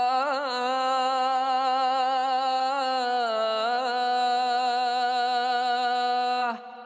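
A man's voice reciting the azan, the Islamic call to prayer, stretching one phrase into a long held note. It wavers with quick turns near the start and dips in pitch around the middle, then drops away sharply near the end.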